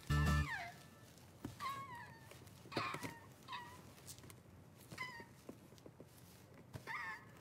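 A crow chick giving short, high, falling cheeps, about six of them spaced a second or so apart.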